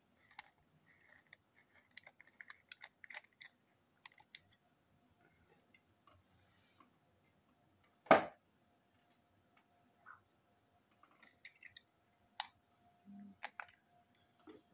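Small plastic clicks, taps and scrapes as a plastic TrackMaster toy engine is worked on with a small screwdriver. One much louder single knock comes about halfway through, and a faint steady hum runs through the second half.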